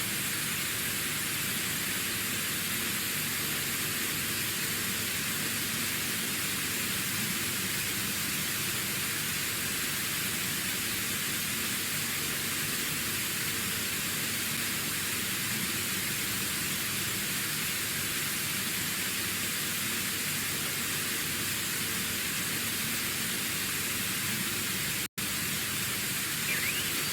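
Steady static hiss, like a broadcast signal gone off the air, with a faint hum underneath. It cuts out for an instant about 25 seconds in, and a louder wavering sound rises right at the end.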